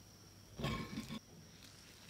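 Close-miked eating of cream cheese garlic bread: one short bite-and-chew sound about half a second in, lasting about half a second.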